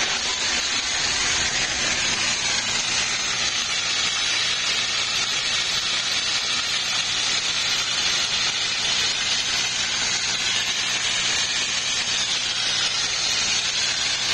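Water gushing under pressure from a sprinkler system's test discharge outlet and splashing onto a concrete floor: a steady, even hiss that does not change. This is the test flow of a sprinkler inspection.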